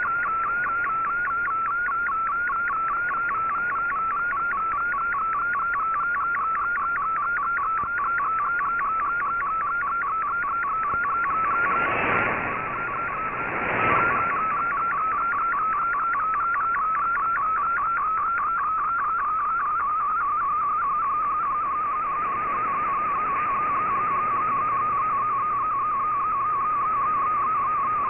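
Digital picture transmission in MFSK64 picture mode, received off shortwave radio: one fast-warbling tone with even rapid pulses as a colour image is decoded line by line. Two short bursts of noise come midway through.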